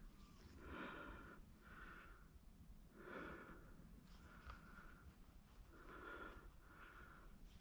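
Near silence, with about six faint, soft, short sounds spread across it.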